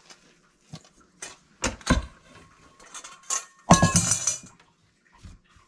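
Kitchenware being handled: scattered light knocks and clinks, then a louder metallic clatter about four seconds in that rings briefly.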